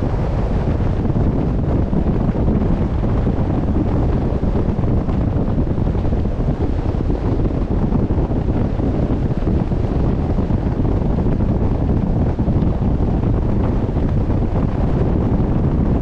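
Steady wind noise buffeting the microphone, a dense low rush over the sea, aboard a sailing boat on open water, with the wash of the sea mixed in.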